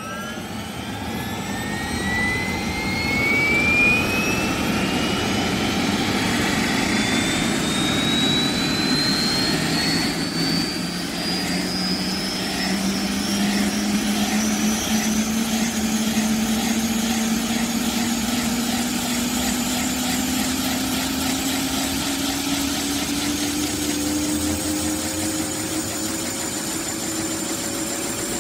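Helicopter sound effect: a steady engine rumble with a turbine whine that rises slowly in pitch, growing louder over the first few seconds.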